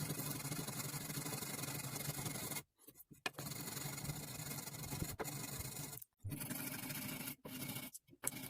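Hand sanding a mild steel knife guard: sandpaper rubbing steadily on the metal, a continuous scratchy rasp broken off abruptly several times.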